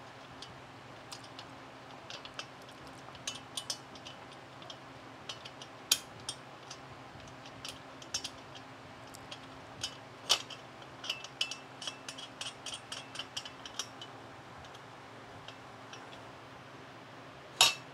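Light, irregular metallic clicks and clinks of nylock nuts being spun by hand onto bolts through an aluminium frame, with a sharper click near the end.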